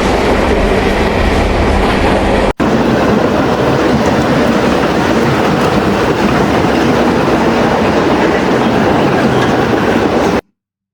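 AI-generated sound effect from ElevenLabs' text-to-sound generator: a train running on rails with clickety-clack from the wheels. It drops out for an instant about two and a half seconds in and cuts off suddenly near the end.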